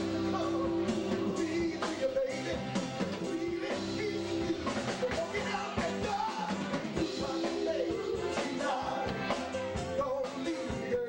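A man singing lead vocals into a handheld microphone over band music, with drums keeping a steady beat.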